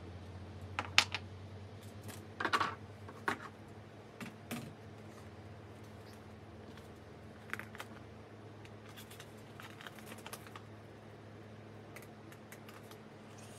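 Hands handling small parts and packaging from a microphone boom-arm kit: scattered sharp clicks and short rustles, loudest in the first few seconds, then lighter ticking.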